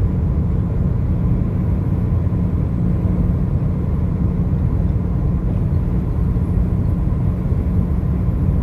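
Car driving at road speed: a steady low rumble of engine and tyre noise.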